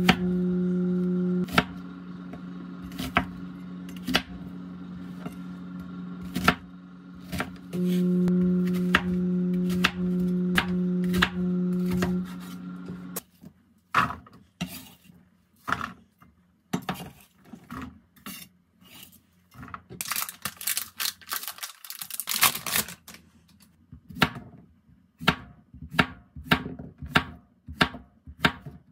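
Kitchen knife chopping an onion and then slicing a zucchini on a wooden cutting board: sharp, irregular knocks of the blade on the board, which become evenly spaced strokes near the end. For the first half, a steady low tone sounds under the knocks and stops about halfway through.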